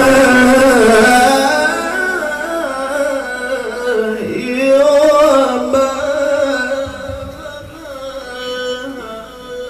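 A male qari's melodic Quran recitation (tilawah): one long ornamented phrase held on a wavering pitch, dipping and rising about halfway through, then dying away near the end.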